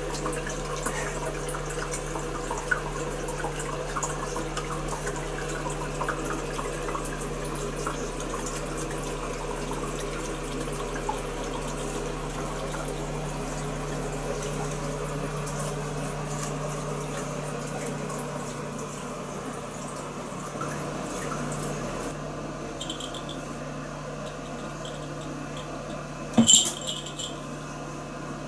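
Water running from the spout of a toilet tank's hand-wash basin as the tank refills after a flush, thinning out past the middle. Near the end comes one sharp knock, the loudest sound.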